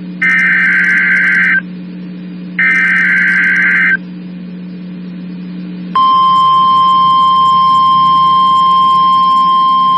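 NOAA Weather Radio's Specific Area Message Encoding (SAME) header: two short, harsh data bursts of about a second and a half each. About six seconds in comes the steady single-pitch warning alarm tone (1050 Hz), which holds on. This is the weekly test of the alert tones that wake weather-radio receivers.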